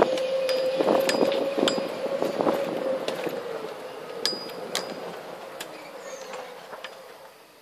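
A resort buggy riding along a concrete path: a steady motor whine with rattling and clinking of the body over the surface. The whine and noise fade away over the second half.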